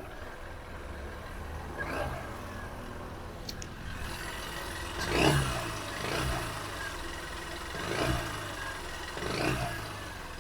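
Honda Unicorn BS6's single-cylinder motorcycle engine idling and blipped about five times, the pitch rising and falling with each rev. It runs without the tappet ticking, now that the worn rocker arm has been replaced and the tappet clearance reset.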